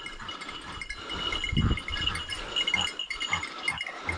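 A hunting dog's bell tinkling continuously as the dog runs through the undergrowth. Underneath are irregular footsteps and rustling through dry bracken.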